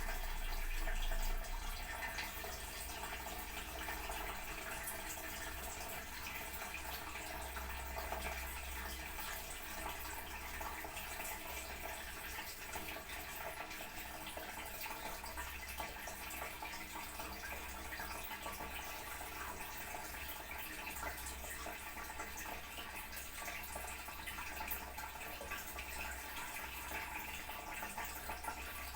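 Toilet cistern refilling after a flush: a steady run of water into the tank, slightly louder in the first second or so, then even.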